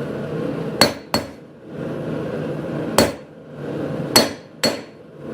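Hand hammer striking hot 5160 spring-steel bar stock on an anvil, five sharp blows with a brief metallic ring: two close together, then a single blow, then two more close together. The blows are straightening and shaping the taper of a slot punch.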